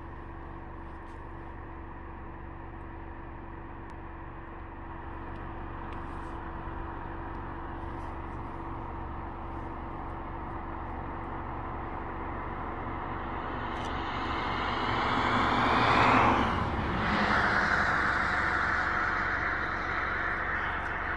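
A vehicle passing on the road, its tyre and engine noise swelling to its loudest about three-quarters of the way through and then easing off, over a steady low hum.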